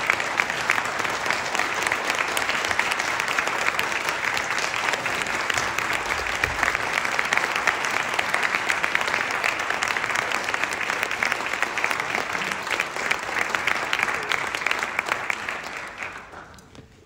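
Audience applauding, a steady dense patter of many hands clapping that dies away near the end.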